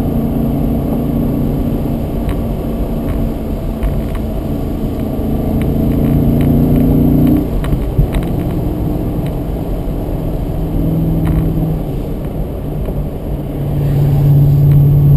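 BMW Z8's V8 engine pulling the car along, heard from inside the cabin. About seven and a half seconds in the note breaks off and comes back lower as the driver changes gear, and it swells louder again near the end.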